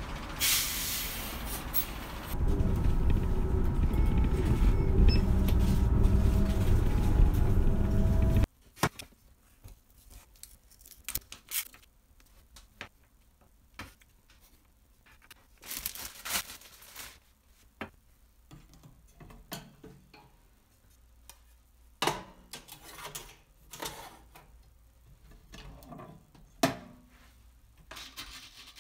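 Steady street traffic noise, getting louder about two seconds in, until a sudden cut about eight seconds in. After that come scattered light clicks and knocks of a knife on a wooden cutting board and a metal toaster-oven tray. Near the end a toaster-oven timer dial is turned.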